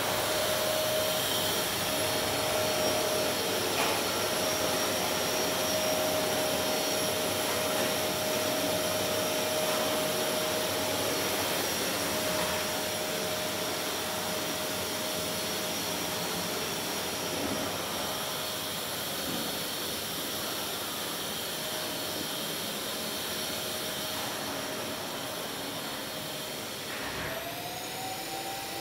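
Steady whirring rush of an electric fan, with a steady hum tone and a faint high whine over it. Near the end the hum and whine slide up in pitch.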